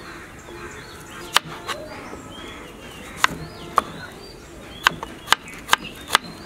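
Chef's knife slicing a red onion on a plastic cutting board: sharp knocks of the blade hitting the board, about eight of them at an irregular pace, coming closer together near the end.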